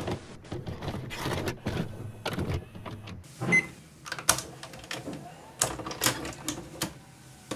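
VHS video cassette recorder's tape mechanism clicking and clunking as a cassette moves in its front loading slot, with a short beep about three and a half seconds in.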